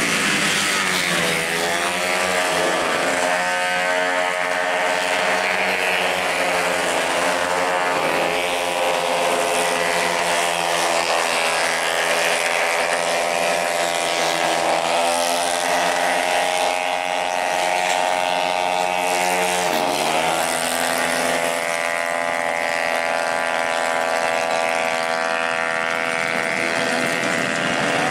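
Racing automatic scooters' single-cylinder engines running at high revs as they race past, several at once, their pitch dipping and climbing again a few times, most sharply about two-thirds of the way through, as they slow for corners and accelerate out.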